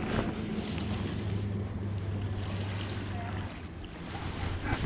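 Steady low motor-like drone under wind noise on the microphone; the drone drops away about three and a half seconds in.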